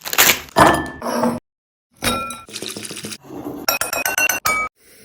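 Kitchen utensils and dishes clinking and knocking together in a quick run of sharp clicks, some leaving a short ringing tone, with a brief dead-silent gap about a second and a half in.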